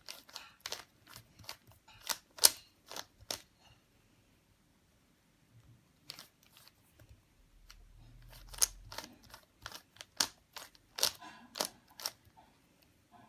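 Rubik's cube being turned by hand: irregular plastic clicks and clacks as the layers are rotated, in quick runs with a pause of a couple of seconds in the middle.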